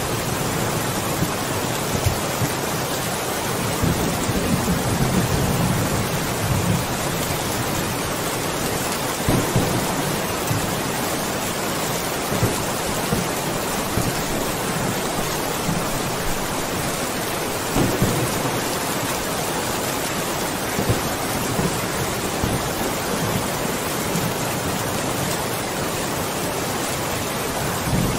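Steady heavy rain with a low rumble of thunder that swells about four to seven seconds in. A few louder single drops or splashes stand out now and then.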